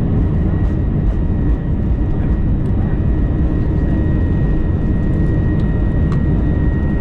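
Steady roar of an Airbus A321 jet airliner's engines and airflow heard from inside the passenger cabin, a heavy low rumble with a thin steady high whine above it.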